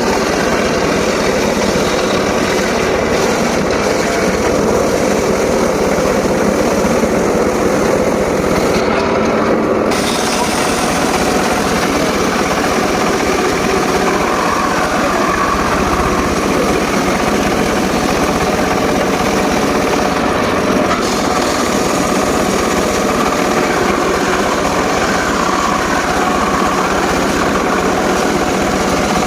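Homemade circular saw rig running and sawing teak wood: a loud, steady mechanical drone that goes on without a break.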